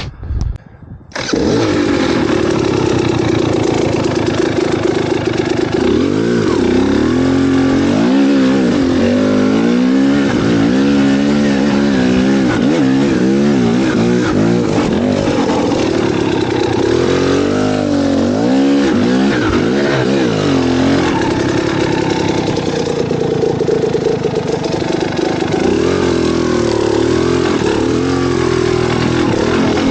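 A vehicle engine catching about a second in after a few short bursts, then running with its revs rising and falling again and again, steadier near the end.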